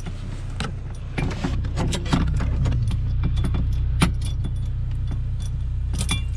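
A used sailboat rigging turnbuckle being screwed by hand onto its threaded fitting, with irregular small metallic clicks and clinks as it turns and threads in. A steady low hum runs underneath.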